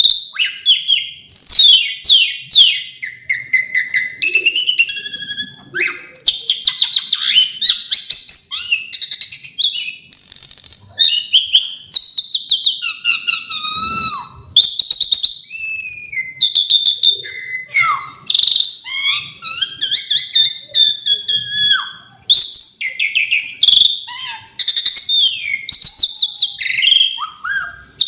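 Pied starling (jalak suren) singing a long, loud, continuous song full of varied phrases: rapid trills, whistled notes and rising and falling glides, with short pauses between phrases, including mimicked song inserts (isian).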